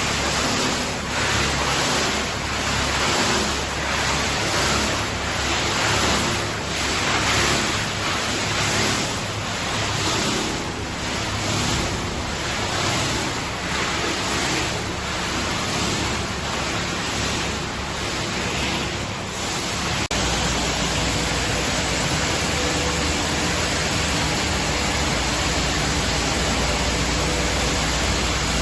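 PET bottle washing line machinery running with a loud, rushing noise that swells and fades in even pulses about once a second; about two-thirds of the way in it changes abruptly to a steadier rushing noise over a low hum.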